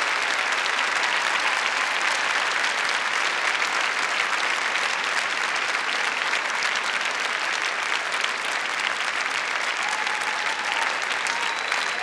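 A large crowd applauding steadily.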